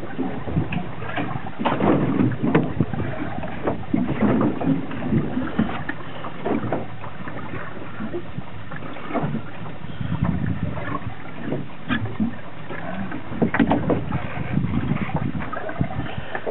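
Sounds aboard a fishing boat: wind on the microphone and water noise, with irregular knocks and thuds throughout.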